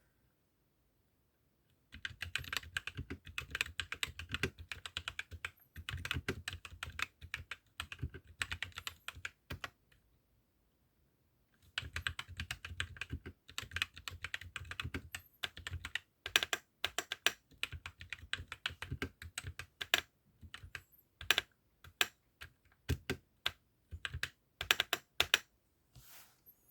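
Typing on an APAYADO DK68 mini mechanical keyboard with MMD Holy Panda 55g tactile switches. Fast runs of keystrokes start about two seconds in and come again after a short pause. Then slower, separate key strikes, some of them louder.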